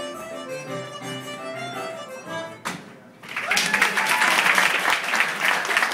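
A traditional Irish dance tune with a stepping melody plays, then cuts off abruptly with a click about two and a half seconds in. After a brief lull, the audience breaks into loud applause.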